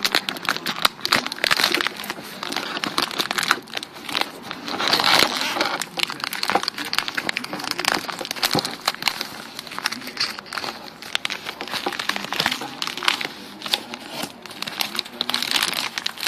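Packaging of a combat ration's accessory pack crinkling and rustling as it is handled and opened: a dense run of small crackles, louder about five seconds in.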